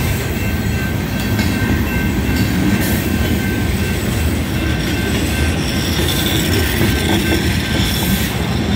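Freight train cars rolling slowly past through a grade crossing: a steady, loud rumble of wheels on rails, with a thin high squeal held over it.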